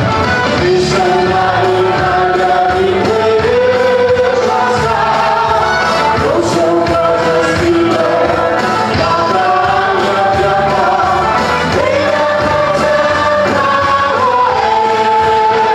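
A congregation and microphone-led worship singers singing a gospel worship song together in long held notes, over steady instrumental backing.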